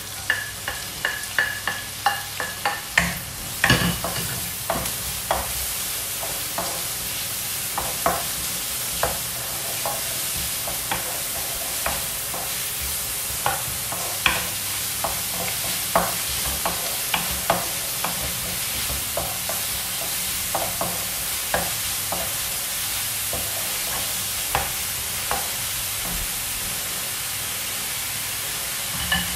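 Chopped onion sizzling in hot olive oil in a nonstick wok, with a steady hiss, while a wooden spatula taps and scrapes the pan as it is stirred. The taps come thick and fast in the first few seconds as the onion is scraped off a plate into the pan, then more sparsely.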